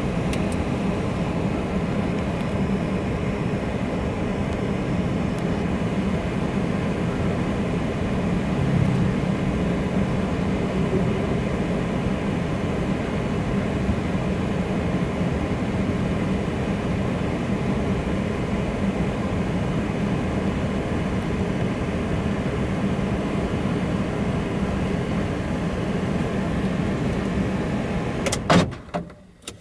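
A steady mechanical hum with a constant low drone, cutting out after a couple of sharp clicks near the end.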